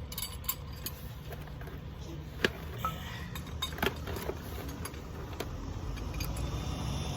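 Scattered sharp metallic clinks and taps of hand tools and parts being handled, the loudest about two and a half and four seconds in, over a steady low rumble that grows a little louder near the end.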